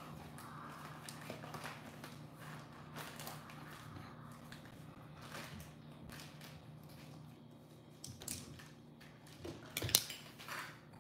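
Faint handling of play dough and small plastic play-dough tools on a stone countertop: scattered soft clicks and rustles over a low steady hum, with a sharp knock about ten seconds in.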